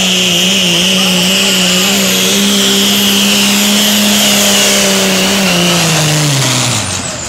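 Diesel pulling truck's engine running hard at high revs under load, with a high whine above the engine note. About five and a half seconds in, its pitch falls steadily away and the sound drops off near the end: the engine, tired after more than 50 hooks, snuffing out at the end of the pull.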